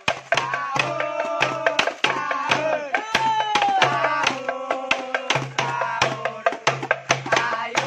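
Music with a fast, steady drum beat of hand drums and percussion strikes, and a melodic line that slides up and down over it.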